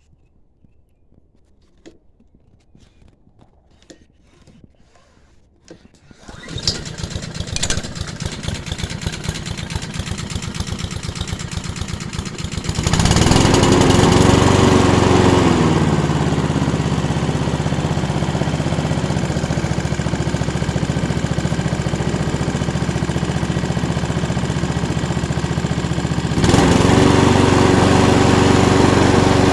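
Honda GCV135 single-cylinder petrol engine on a Mountfield lawnmower. After a few faint clicks it starts about six seconds in and runs slowly. About 13 seconds in it speeds up, wavers briefly in pitch, then settles to steady running, and it steps up louder again near the end.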